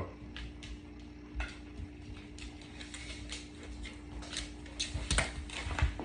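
A dog walking away on a hard floor: irregular light clicks and taps from its claws and from the tools in the belt it wears, over a faint steady hum.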